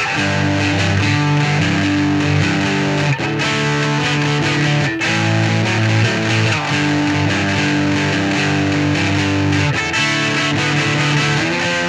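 Electric guitar played through a Caline CP-12 Pure Sky overdrive pedal into a Vox AC15 amp. Overdriven chords ring out and change every second or two, with a few brief breaks between them.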